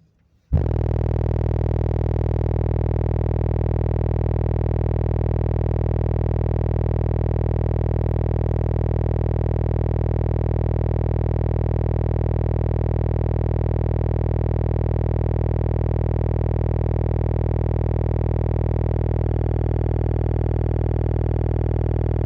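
Three 15-inch Slapz Audio Oblivion car subwoofers playing a 20 Hz test tone at full power, heard as a loud, steady, distorted buzzing drone that starts about half a second in and holds without change. At 20 Hz the system doesn't seem to be hitting hard; the car plays louder at 30 Hz.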